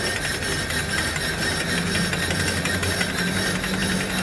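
Brake disc lathe cutting a warped Toyota Avanza brake disc, running steadily with a low hum and a fast, even ticking of the tool on the metal. The disc is warped, so dark unmachined patches remain where the cutter is not yet touching.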